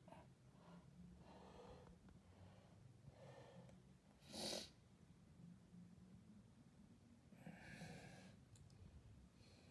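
Near silence with faint breathing close to the microphone: a few soft breaths, and one short, sharper sniff about halfway through.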